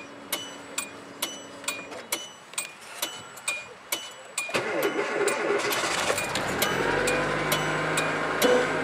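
Cold start of a 2008 Kia Rio's 1.6-litre four-cylinder engine after a night near −18 °F. The starter cranks about four and a half seconds in, the engine catches, and it settles into a high cold fast idle near 2,000 rpm. A steady ticking chime about twice a second runs under it.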